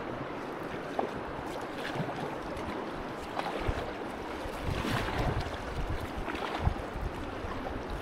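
Double-bladed paddle dipping and pulling through river water in steady kayak strokes, with a few short splashes and water rushing past the kayak, and wind buffeting the microphone.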